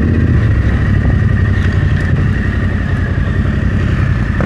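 Motorcycle engine running steadily, with a thin steady whine above the engine note.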